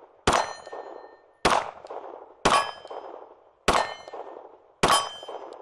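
Five 9mm shots from a Glock 34 pistol in a folding brace, fired at about one a second, each followed by the ringing clang of a steel target being hit.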